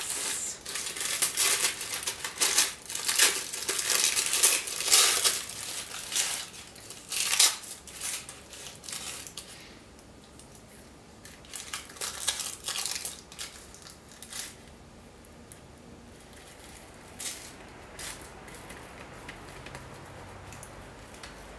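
Thin collage paper rustling and crinkling as it is handled and pressed onto a waxy painting. The rustles come thick and fast for the first several seconds, then grow sparser and fainter.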